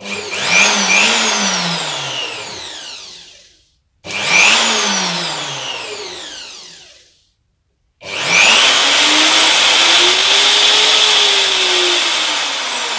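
Einhell TC-RO 1155 E 1100-watt plunge router, set to a reduced speed. It is switched on briefly and spins down to a stop over about three seconds, twice. From about eight seconds in it runs steadily with a high whine.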